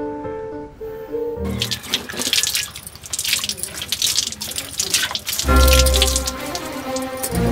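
Water splashing and pouring for about four seconds, set between stretches of background music: the music stops about a second and a half in and comes back with a heavy beat near the end.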